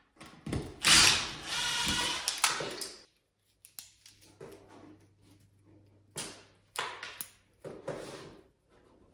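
Cordless drill running in two bursts during the first three seconds at a wall electrical box, followed by quieter handling sounds: scattered clicks and rustling as electrical cable is pulled out of the wall.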